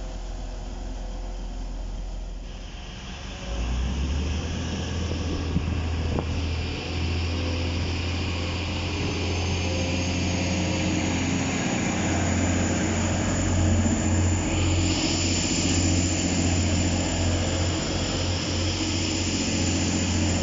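Diesel train engine running with a steady low drone that gets louder about three and a half seconds in, and a hiss that swells higher up near the end as the train passes.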